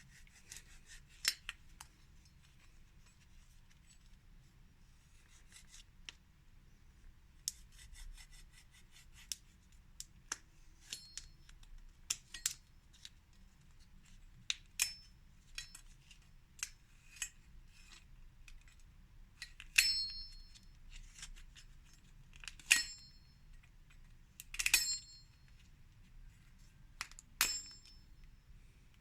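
Skittles dropping onto a plate: scattered hard clicks and quick rattling clusters as the candies hit and bounce, several of the louder hits leaving a short high ring from the plate. The strongest strikes come in the second half.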